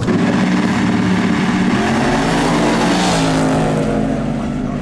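Two drag-racing street cars launching off the start line together, engines revving hard and climbing in pitch as they accelerate down the strip. The sound comes in suddenly at the launch and eases slightly near the end as the cars pull away.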